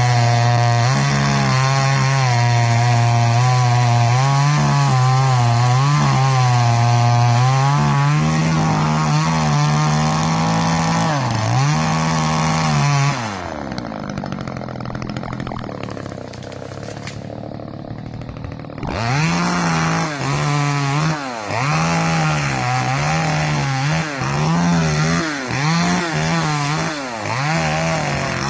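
Two-stroke chainsaw running at full throttle with its pitch wavering as it cuts through small pine. About halfway through it drops back to idle for several seconds, then revs up again in repeated short surges.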